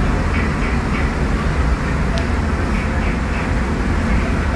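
Scania DC09 five-cylinder diesel engine of a Scania K250UB midibus running steadily while the bus drives, heard from inside the rear of the passenger cabin along with road and drivetrain noise. A brief high tone sounds about two seconds in.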